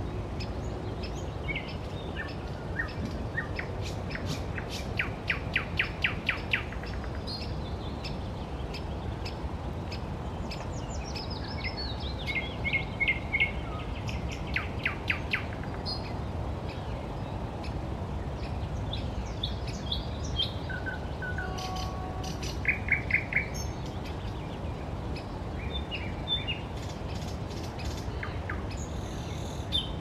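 Several songbirds singing in spring woodland. Phrases of rapid repeated notes come and go over a steady low background noise, with the loudest bursts a few seconds in, around the middle, and about two-thirds of the way through. One phrase near the middle steps down in pitch.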